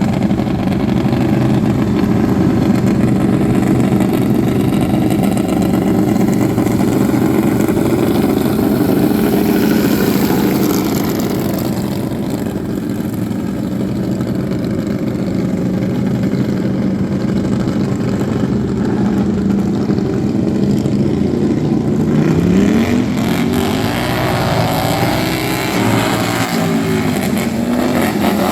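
Racing lawn mower engines running hard in a steady drone. From about 22 seconds in, the engine pitch climbs and drops several times as they rev up and back off.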